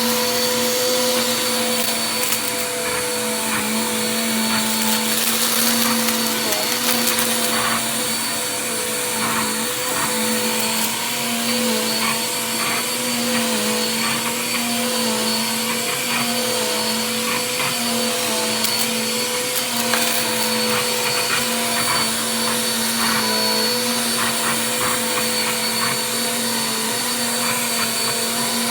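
Vacuum cleaner running steadily: a constant motor hum with a high whine over it and scattered small clicks.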